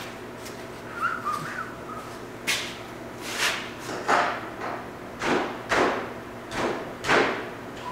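A series of about seven short scraping strokes, unevenly spaced, with a man whistling a few notes about a second in.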